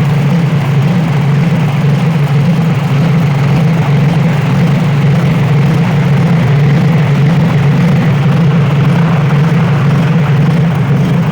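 Small 7 hp petrol engine running at a steady speed, driving a homemade walnut hulling machine through a reduction gearbox.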